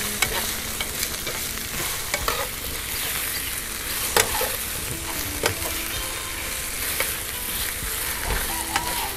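Slices of fish cake sizzling in hot oil in a nonstick frying pan, with wooden chopsticks clicking and scraping against the pan at irregular moments as the slices are turned.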